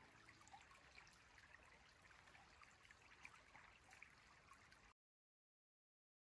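Near silence: a small forest stream trickling very faintly, with a few faint ticks, cutting to dead silence about five seconds in.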